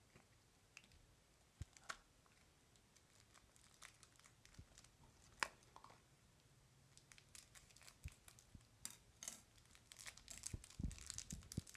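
Crinkly toy wrapper being torn open and crumpled by hand: a few scattered soft rustles and clicks at first, becoming a busy run of crinkling in the last few seconds.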